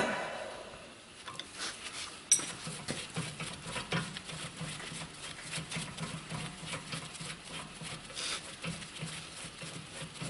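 Small metal clicks and clinks of hand tools working on a car's rear brake caliper while its vibration dampener is being unbolted. There is a sharp click at the start and another about two seconds in, then irregular light ticking over a faint low hum.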